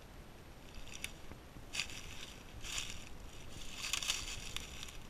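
Footsteps crunching through dry leaf litter on a forest floor, about one step a second.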